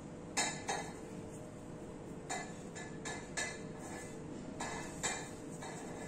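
Light knocks and clinks at irregular intervals, about nine in six seconds, from hands working cookie dough on a marble counter beside a metal tray of sugar, over a steady low hum.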